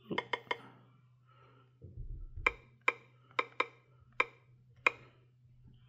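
Key-press clicks as letters are tapped on a Qolsys IQ Panel 4 alarm panel's touchscreen keyboard: a quick run of three, then about seven more spaced out over the next few seconds, over a faint steady hum.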